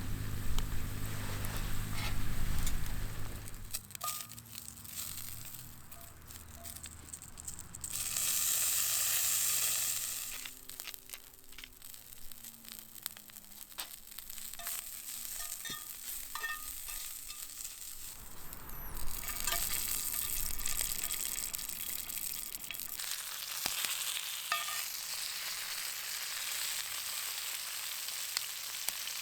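Wagyu beef steak sizzling on a hot teppanyaki iron plate over a campfire, with scattered small pops and crackles. The sizzle swells loud for about two seconds around eight seconds in, and again briefly around nineteen seconds. A low hum is heard in the first few seconds.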